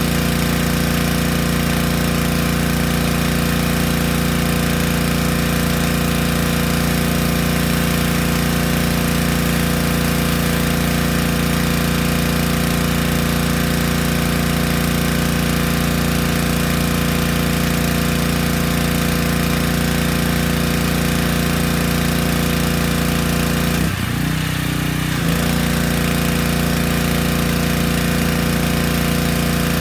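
Small gasoline engine of a Yamaha PowerStroke 3100 PSI pressure washer running steadily, with a brief change in its note about 24 seconds in.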